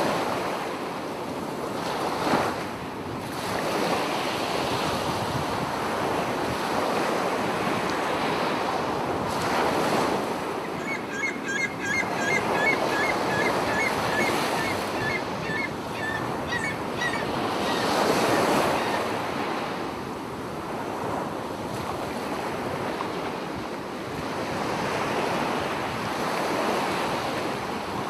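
Sea surf breaking and washing up a sandy beach, the rush of water swelling and easing every few seconds.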